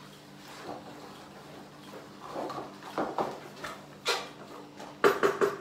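Kitchen clatter: a few scattered sharp knocks and clinks, with a quick run of them near the end, over a steady low hum.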